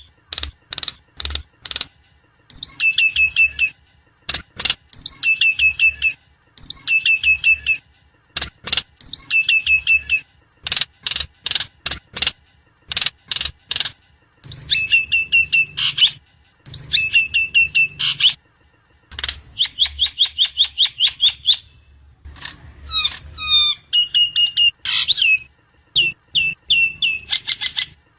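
Javan myna (jalak kebo) calling: bursts of rapid clicking chatter alternate with repeated high, ringing phrases that slur downward, one burst every second or two.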